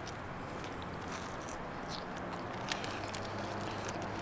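A person biting into a kebab in flatbread and chewing, faint, over a steady low background hum, with a faint click near the end.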